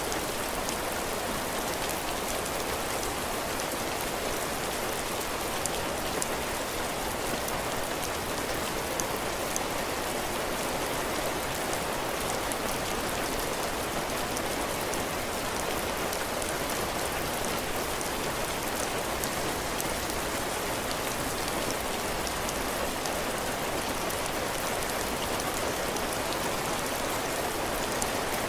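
Steady heavy rain falling on a cabin porch, its roof and the ground, a dense even hiss with many small drop impacts.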